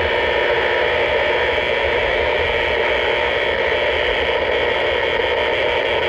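Steady, harsh buzzing static from a Kenwood FM dual-band mobile radio's speaker, the receiver tuned to the aircraft band in AM: this is the radio-frequency interference being tracked down as power line noise. A low rumble from the moving truck runs underneath.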